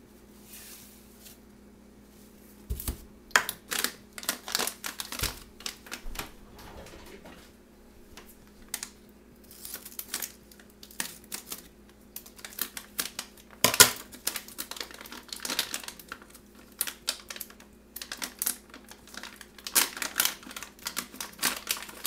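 Crinkling and rustling of a paper Epsom salt bag being handled and cut open with scissors, with many irregular clicks and small knocks, starting a few seconds in.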